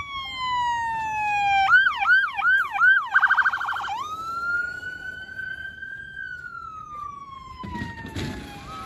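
Electronic police siren on a law-enforcement vehicle cycling through its tones. First a slowly falling wail, then a few quick yelps and a brief very fast warble, then a long wail that rises and slowly falls.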